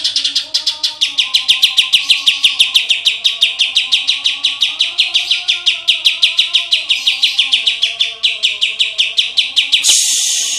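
Green leafbird (cucak ijo) singing a long, unbroken run of sharp, rapidly repeated high notes, about seven a second. A brief hiss comes near the end before the sound cuts off.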